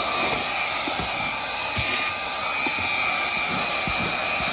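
Cordless handheld brushless car vacuum running steadily at its highest of three speeds, giving a high-pitched motor whine with a strong rush of air, and scattered light knocks underneath.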